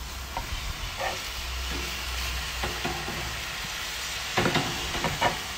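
Fennel and tomatoes sizzling steadily in a hot pan as they caramelise, with a utensil scraping and knocking against the pan a few times near the end.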